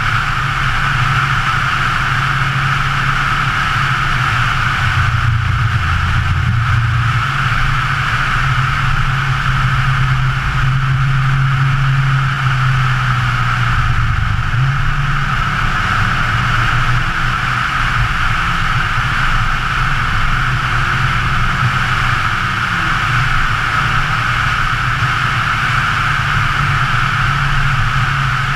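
2013 Scion FR-S's 2.0-litre flat-four engine running at road speed, its note shifting up and down a few times, under a steady rush of wind and tyre noise.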